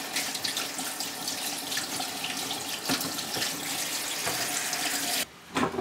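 Kitchen tap running into a sink, a steady rush of water that is shut off abruptly about five seconds in. A light knock or two comes partway through.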